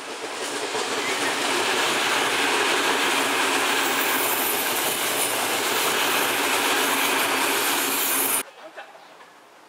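Tokyo Metro 03 series eight-car electric train passing, a steady rumble and rattle of wheels on rail that builds over the first couple of seconds. The sound cuts off abruptly near the end.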